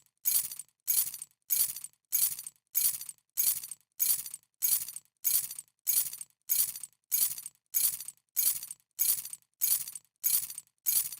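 A bunch of keys dropped and landing with a short metallic jangle, repeated evenly about three times every two seconds.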